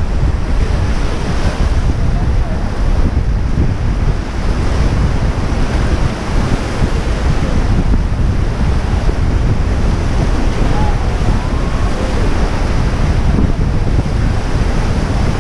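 Whitewater rapids rushing and churning loudly around an inflatable raft, a steady roar heaviest in the low end, with wind buffeting the microphone.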